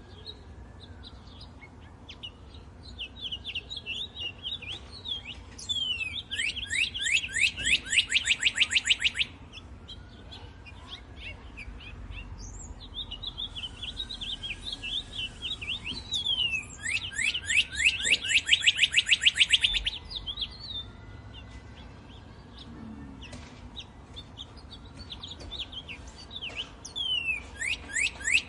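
Songbirds chirping, with two loud rapid trills of about three seconds each, a little after the start and about halfway through, and another beginning at the end. Fainter rising-and-falling calls repeat underneath.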